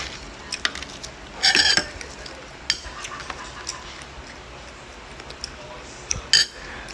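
Close-up eating sounds of crisp lettuce leaves being chewed and handled: scattered small crunches and clicks, with two louder crisp crunching bursts, one about a second and a half in and one near the end.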